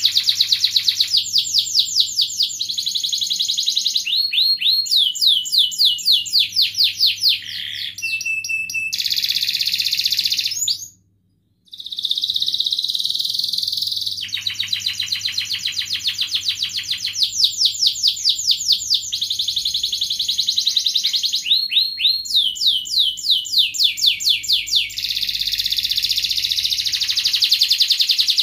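Domestic canary singing a long, loud song of fast rolling trills and runs of quick repeated chirps, changing pace every second or two. The song breaks off for about a second near the middle, then carries on.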